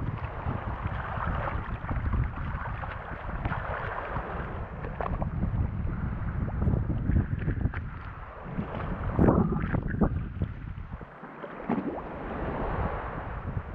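Wind buffeting the microphone over water sloshing around a moored sailing yacht, with a few light knocks and splashes.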